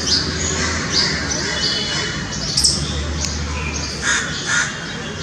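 A squirrel calling in a string of short, high-pitched chirps, about two a second.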